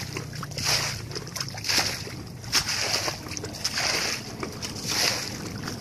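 Hands scooping and splashing in shallow muddy water, a wet splash or slosh about once a second.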